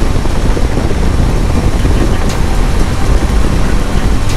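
Motorcycle riding at road speed: a steady rush of wind over the microphone, with the bike's engine running underneath.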